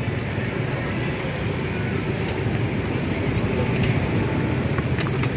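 Steady low rumble of passing road traffic on a busy street, with a few light crackles of a plastic bag being handled.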